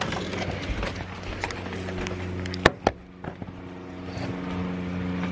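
A door latch clicking twice in quick succession, about two and a half seconds in, as a door is opened. Under it is a steady low mechanical hum that sets in shortly before and keeps going.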